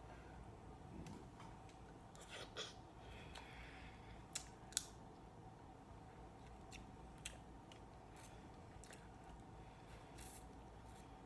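Sporadic sharp little clicks and crackles of shrimp and mussel shells being handled and peeled while eating, with a couple of louder snaps a few seconds in, over a faint steady hum.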